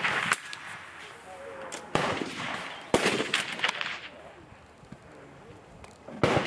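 Four rifle shots: one right at the start, two about a second apart in the middle, and one near the end, each a sharp crack followed by a short echoing tail.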